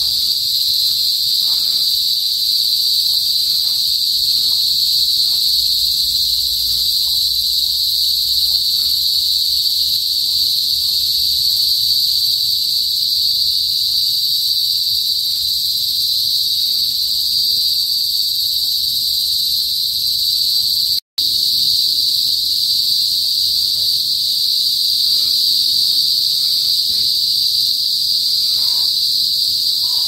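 A chorus of cicadas (kuliglig) singing as one loud, steady, high-pitched buzz. It breaks off for an instant about two-thirds of the way through.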